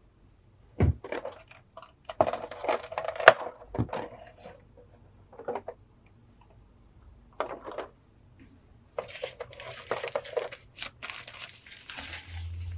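Clear plastic blister tray crackling as it is handled, with tissue-paper wrapping crinkling and rustling, in a series of separate bursts, the loudest about three seconds in.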